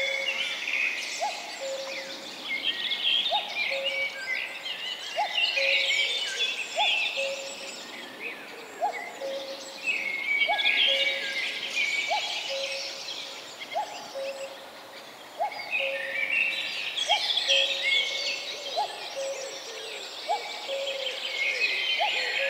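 Dense chorus of many birds calling and singing, with a lower single note repeated evenly about every second and a half underneath.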